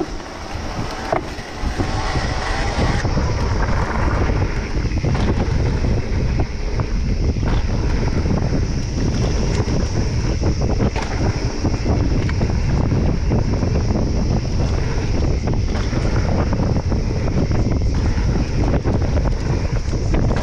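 Wind buffeting the camera microphone and tyres rolling over a dirt singletrack as a Giant Reign electric mountain bike is ridden along the trail, with frequent small knocks and rattles from the bike over bumps. The rumble swells about two seconds in as the bike picks up speed, then stays steady.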